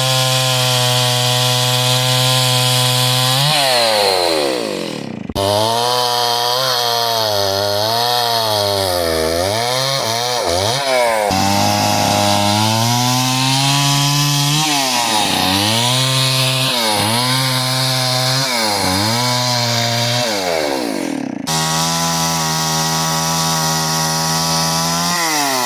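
Gas chainsaw cutting through a dead tree log: the engine runs at high revs, its pitch dipping and recovering as the chain bogs in the wood and dropping when the throttle is let off. The sound breaks off abruptly twice.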